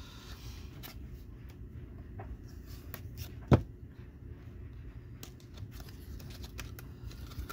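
Hands opening a cardboard diecast-car box: light paper rustling and small scattered clicks, with one sharp click about three and a half seconds in.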